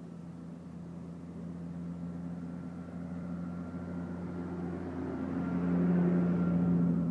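An engine running with a steady low hum. It grows louder to a peak about six seconds in, then falls away at the end.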